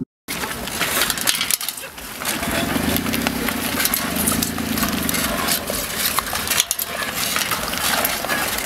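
Outdoor street noise with many light metallic rattles and clicks from a bicycle carrying two riders rolling over asphalt.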